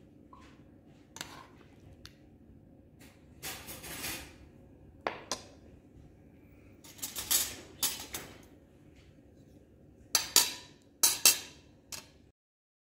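Metal cutlery clinking and scraping against a nonstick pot and a china plate as chicken is served, in a string of sharp clinks with the loudest near the end, when a fork and spoon are laid down on the plate.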